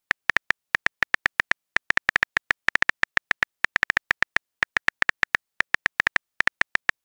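Simulated phone-keyboard key clicks from a texting-story app, one short click per letter as a message is typed out. The clicks come about five or six a second in an uneven typing rhythm, with a few brief pauses.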